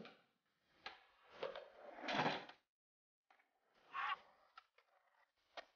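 Rough scraping, rolling noise in a few short swells, broken by sharp clacks about a second in and again near the end.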